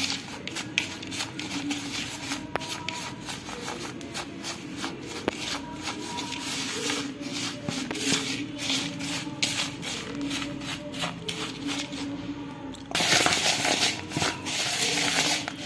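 A spoon scraping and knocking against a bowl while thick jaggery-syrup and flour dough is stirred, many short uneven strokes over a steady low hum. About thirteen seconds in, a louder rushing, rubbing noise takes over for a couple of seconds.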